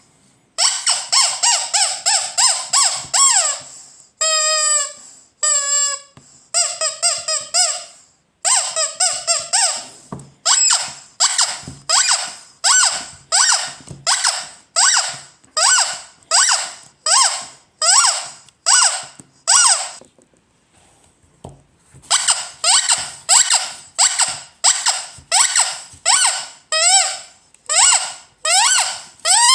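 Ledraplastic rubber squeaky toy squeezed over and over. First come a few longer, wavering squeaks, then a steady run of short squeaks about two a second, with a pause of about two seconds before the squeaking resumes.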